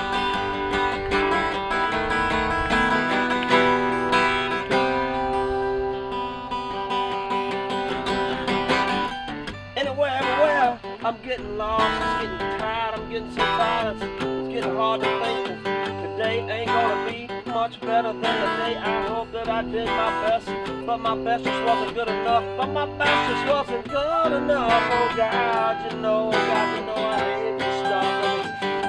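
Two acoustic guitars playing a song together, strumming chords with picked notes.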